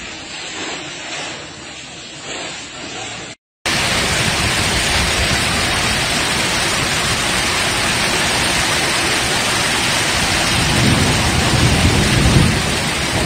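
Hail and heavy rain pelting down, a loud, dense, steady hiss, with a low rumble swelling near the end. Before it is a quieter stretch of background noise, broken off by a short silent gap about three seconds in.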